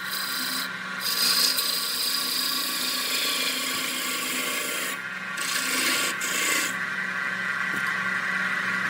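Wood lathe running with a steady motor hum while a hand-held turning tool scrapes and cuts the spinning wood. The scraping breaks off briefly three times as the tool is lifted from the work.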